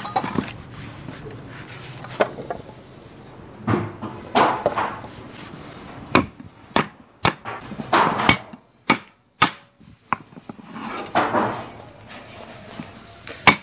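Fresh unpeeled ginger being smashed to crack it, heard as irregular knocks, about a dozen in all, with a few longer rough noises between blows.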